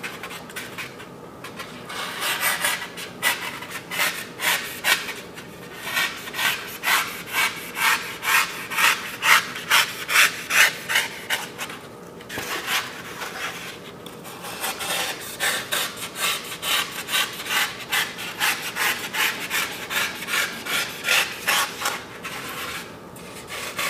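A knife shaving a block of fish carving foam by hand: rapid rasping strokes, about two a second, with a short lull near the start and another about halfway through. The strokes are rounding off the flat spots as a fish body is roughed out.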